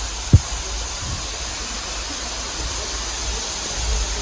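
Steady hiss of water from a tall single-drop waterfall falling close by, its flow light rather than heavy. A single short, loud thump comes about a third of a second in.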